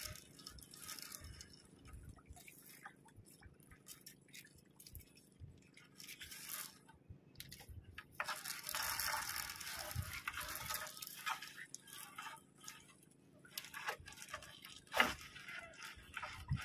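Wet handling sounds of a fishing net being hauled into a small boat: water dripping and splashing, rustling and small knocks, with a longer splashy stretch midway and one sharp knock near the end.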